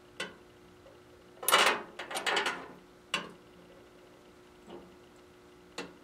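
Glass vacuum tubes clicking and knocking as they are set down and arranged on the floor of a microwave oven's cavity, with a longer clinking clatter about one and a half seconds in and single knocks after it.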